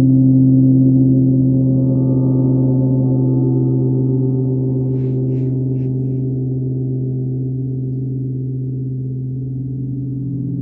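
Large gong played with a mallet, sounding a sustained low drone that swells at first and then slowly fades. A few faint short ticks come about halfway through.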